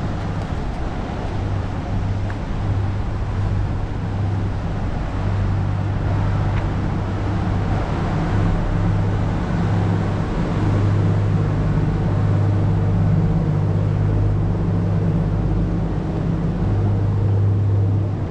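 An engine running steadily with a low hum, over a wash of outdoor background noise.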